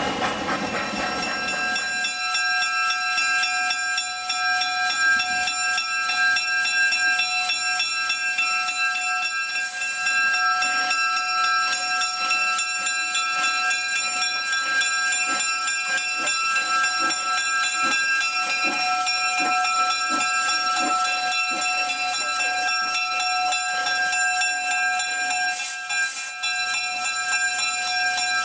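2-8-0 Consolidation steam locomotive #610 hissing steam, with several steady high tones held over the hiss throughout.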